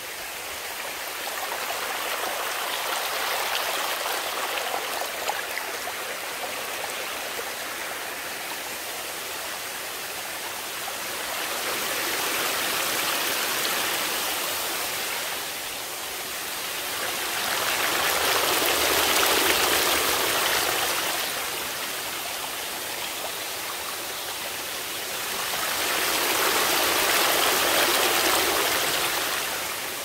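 Stream water rushing and splashing over rocks in a small cascade. It grows louder and softer four times.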